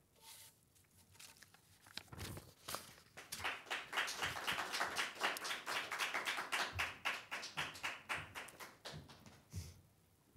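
Audience applauding after a speech, starting about two seconds in, rising quickly, and tapering off near the end.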